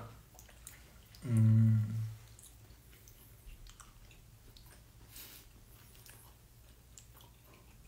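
A man's drawn-out, steady-pitched 'mmm' hum about a second in, then quiet chewing of sushi with small clicks of chopsticks.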